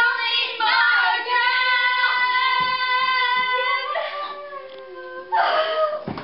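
Children and girls singing together loudly. They hold one long sung note for about three seconds, then sing shorter phrases near the end.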